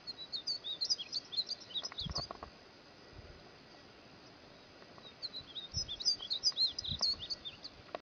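Tigrillo degollado, a small finch, singing two fast phrases of high, quick twittering notes with a pause between them, with a few faint low bumps.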